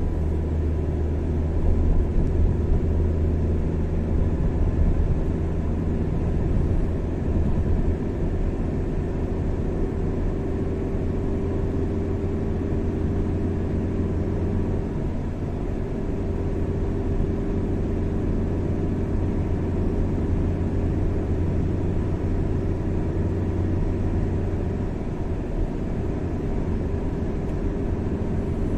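Car driving at highway speed: a steady low drone of engine and tyre road noise.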